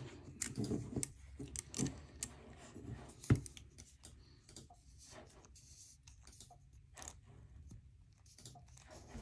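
Small screwdriver working a tiny screw on a Zero Tolerance 0562 folding knife's pocket clip, with light clicks and taps of the driver bit and the knife being handled. One sharper click comes about three seconds in, then the ticks grow fainter.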